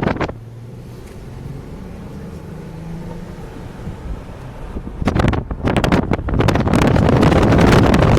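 BMW M6's twin-turbo S63TU V8 with catless downpipes: its exhaust drops from loud to a low, quieter drone that climbs slightly in pitch, then turns loud and rough again about five seconds in as the throttle opens.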